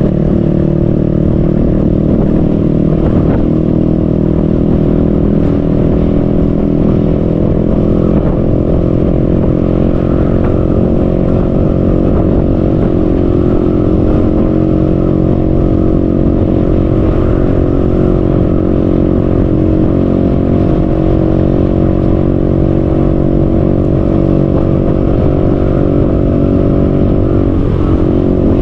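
Motorcycle engine running at a steady cruising speed, a constant drone that barely changes in pitch, over wind and road noise.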